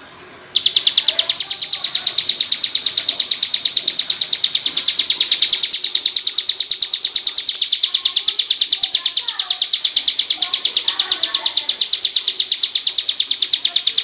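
Bar-winged prinia (ciblek) singing: a loud, fast, even run of identical high chirps, about eight a second, that begins abruptly about half a second in.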